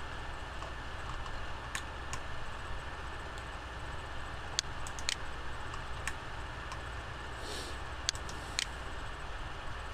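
Scattered single clicks from a computer mouse and keyboard, about eight of them spread irregularly, over a steady low hum and hiss.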